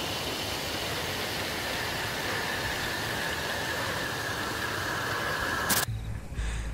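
Steady rushing noise with a faint high-pitched tone running through it, cut off abruptly with a click near the end.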